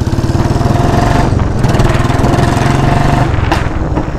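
Royal Enfield Bullet 350's single-cylinder engine running loud through a free-flow exhaust, a long Patiala silencer left completely empty, with each firing pulse distinct as the bike rides on. The revs climb and hold, then drop about three seconds in, with one sharp crack just after.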